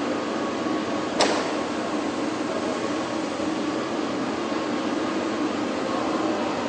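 Steady drone of factory-hall machinery, with one sharp clank about a second in.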